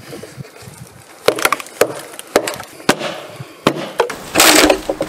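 Hatchet blows knocking into a fresh ash log in a run of sharp separate strikes. Near the end comes a longer, louder rush of noise as the log splits open lengthwise.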